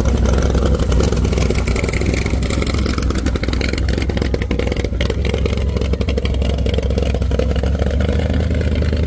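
A loud car engine running steadily with a deep, rumbling exhaust, its firing pulses rapid and even.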